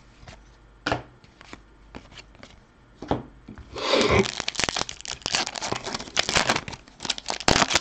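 A few soft clicks of cards being handled, then, about four seconds in, a hockey card pack wrapper being torn open, with dense crinkling and tearing of the foil.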